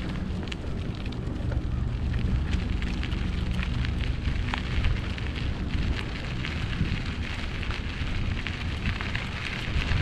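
Strong cold wind buffeting the microphone, a steady low rumble, with irregular crackling on top.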